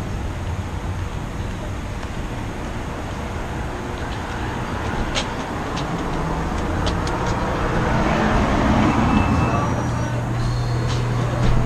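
Street ambience with road traffic noise, then a few sharp clicks around the shop's glass door about five to seven seconds in, and a steady low hum with faint thin tones inside the café near the end.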